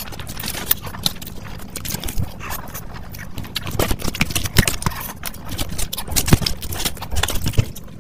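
Close-miked eating of Maggi instant noodles: wet chewing with many irregular sharp mouth clicks and smacks, the loudest in the second half.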